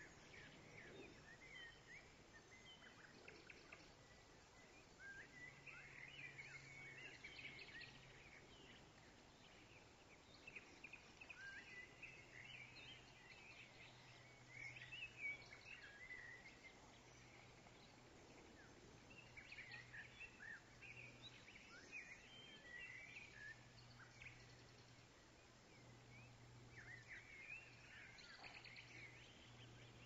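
Faint outdoor ambience of small birds chirping and twittering in bursts every few seconds, with a low hum that comes and goes underneath.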